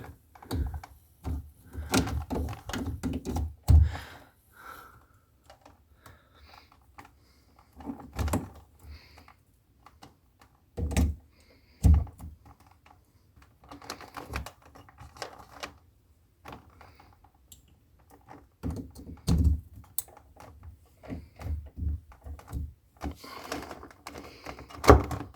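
Cables and plugs being handled and connected at a computer desk: irregular clicks, knocks and rustling, with a few louder thunks.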